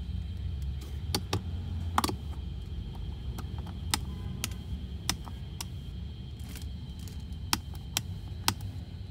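Sharp plastic clicks of switches and buttons on a kids' 12 V electric ride-on car's dashboard, about ten of them at irregular intervals, over a steady low hum.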